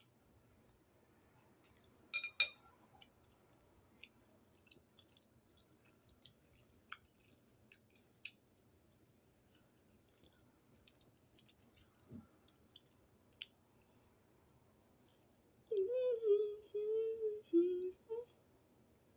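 Soft wet chewing and mouth clicks of someone eating soft ramen noodles, with a louder pair of clicks about two seconds in. Near the end, a voice hums a few notes for about two seconds.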